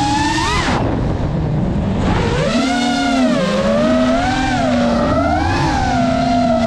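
Geprc Mark 5 FPV quadcopter's motors whining. The steady pitch drops away sharply about half a second in as the throttle is chopped for a dive. About two seconds in it climbs back and then wavers up and down with the throttle, over a low rushing noise.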